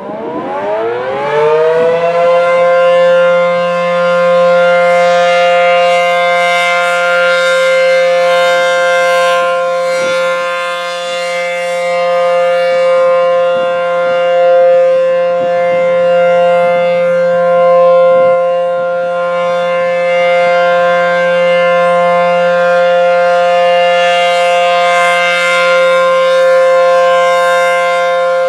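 ACA P-10 outdoor warning siren winding up over about two seconds and then holding a loud, steady tone made of several pitches at once, sounding its scheduled monthly test.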